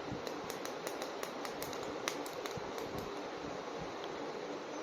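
Light, irregular clicks and taps of a plastic action figure being handled, over a steady background hiss.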